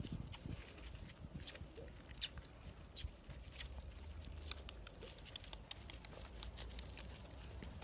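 Great Dane puppies scrabbling around on gravel, with irregular light clicks and scuffs from paws and claws shifting on the stones.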